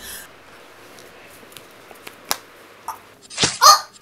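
A couple of short sharp knocks, then near the end a loud, strained shout from a man swinging a stick.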